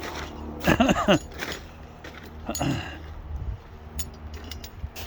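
Wind rumbling on the microphone, with a man's brief wordless vocal sounds twice and a few light clicks near the end.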